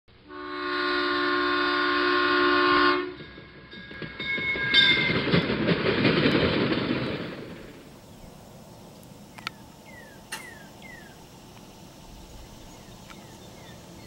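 A train horn blows one long chord for about three seconds, followed by a few seconds of rushing, rumbling noise that dies away. Then a quiet outdoor background with a few short, falling bird chirps, in little groups, about ten seconds in and again near the end.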